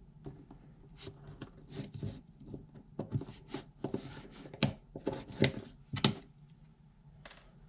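Needle-nose pliers digging into a soft wooden canvas frame and pulling out staples: a run of small, irregular metal clicks and scrapes on wood, loudest a few seconds in.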